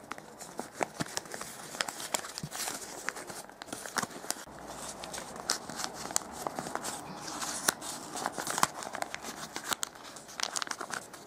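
Stiff glossy origami paper rustling and crinkling as fingers fold and tuck the paper modules into a cube, with many small irregular clicks and crackles throughout.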